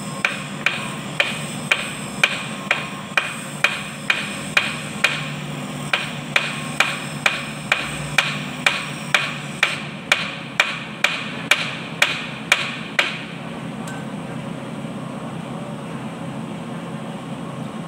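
Steel hammer striking a metal seal driver about twice a second, each blow a sharp ringing clank, to drive an oil seal into a GL300 tractor's front axle housing. The hammering stops about two-thirds of the way through, leaving a steady low background hum.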